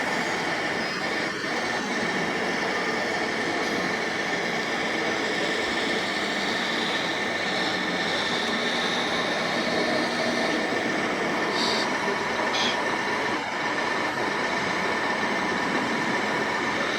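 Steady whine of radio-controlled model trucks' electric motors and gearboxes over a constant background hubbub, with a couple of short clicks about twelve seconds in.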